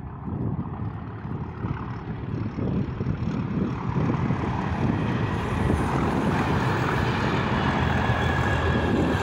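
Pair of class 37 diesel locomotives, with their English Electric V12 engines, hauling a test train past, the engine rumble growing louder over the first few seconds and staying loud as the train goes by. A steady high whistle joins in over the last few seconds.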